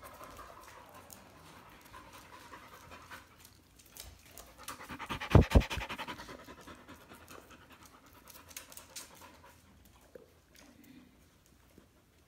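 Dog panting rapidly, faint at first, then loud and close for about two seconds around the middle as the dog comes right up to the microphone, then fading.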